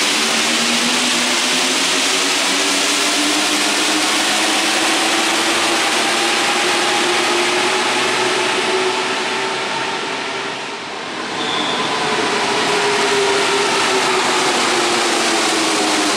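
Paris Metro trains in a tiled underground station. One accelerates away with a rising motor whine over the running noise of its wheels on the rails. After a short lull about ten seconds in, the next train runs in with a whine that falls in pitch as it brakes.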